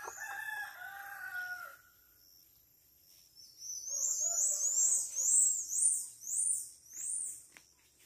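A rooster crows once at the start. About three and a half seconds in, a quick run of very high, rising-and-falling whistled calls follows, two or three notes a second, and it is the loudest sound.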